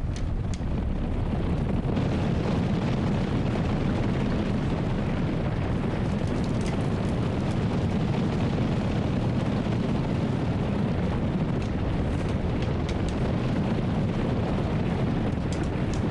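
Bison herd stampeding: a steady, heavy rumble of many hooves.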